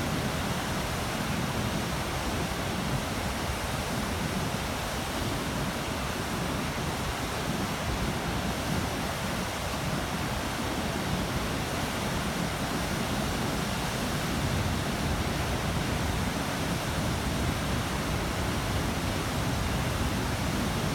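Bæjarfoss waterfall: falling water making a steady, unbroken rushing noise.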